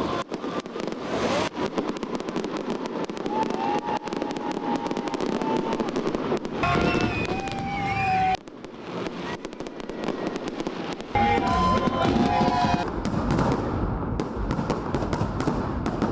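Fireworks salute going off: a fast, dense run of bangs and crackles, with the voices of a watching crowd rising over it at times.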